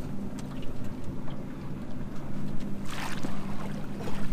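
Steady low motor hum on a fishing boat, with a brief rush of noise about three seconds in.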